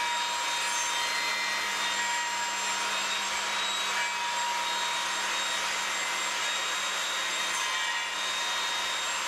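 Evolution Rage table saw cutting through a plywood panel with its blade tilted to an angle, running steadily: an even hiss with a steady whine.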